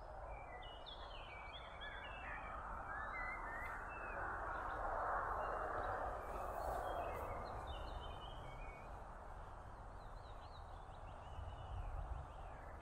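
Small birds chirping in short, scattered calls over a broad rushing outdoor noise that swells through the middle and fades again, with a low rumble underneath.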